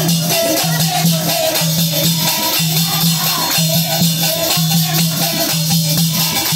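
Devotional bhajan sung by a group of women to a dholak drum beat, hand clapping and jingling percussion, in a steady rhythm about one beat a second.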